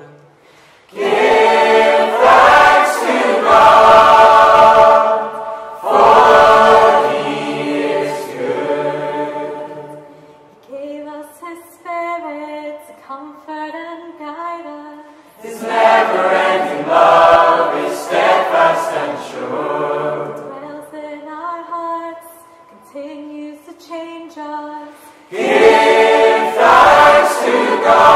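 Small mixed choir of men and women singing unaccompanied: loud, full-voiced phrases four times, with softer passages of fewer voices in between.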